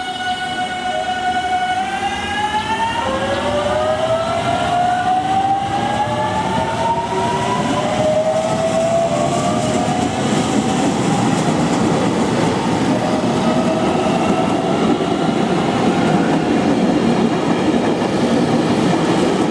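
A JR Kyushu 813 series electric train pulling away and accelerating. The traction motors' inverter whine holds one pitch for about two seconds, then rises in several stepped glides as the train gathers speed. The rolling noise of the wheels on the rails grows louder through the second half.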